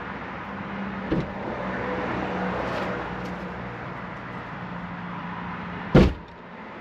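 A motor vehicle engine running steadily, with a knock about a second in and a louder knock near the end.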